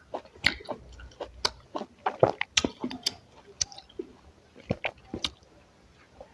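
Close-miked chewing and wet mouth sounds of someone eating, with irregular smacks and clicks. The clicks are loudest a little past two seconds in and again near five seconds.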